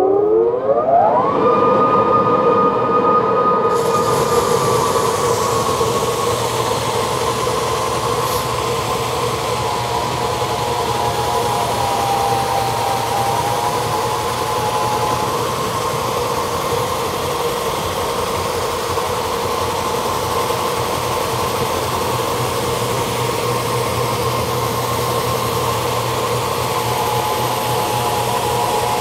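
Lagler Trio three-disc floor sander starting up: its motor winds up in pitch over the first second or so, then runs steadily with its built-in vacuum. A steady hiss joins about four seconds in, and the machine keeps running evenly.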